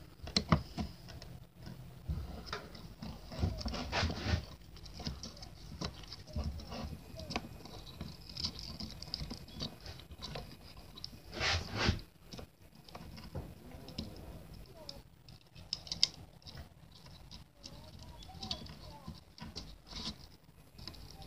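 Small parts of a pneumatic nail gun clicking, tapping and scraping as it is reassembled by hand after cleaning. The handling noise comes in irregular bursts.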